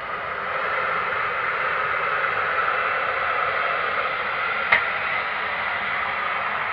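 John Deere 7530 tractor pulling a Gaspardo Aliante seed drill through a field, heard as a steady hissing rush with no clear engine note, growing a little louder about half a second in. A single sharp click about two-thirds of the way through.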